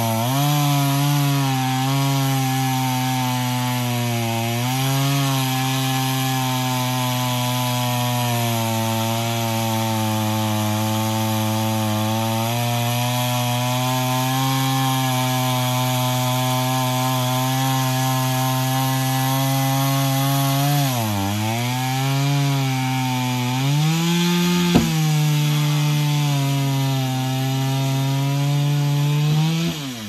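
Two-stroke chainsaw running at full throttle while cutting through a pine log, its engine note steady under load. The pitch dips and recovers briefly twice, once about four seconds in and again about two-thirds through. There is a sharp knock about three-quarters through, and the engine winds down at the very end.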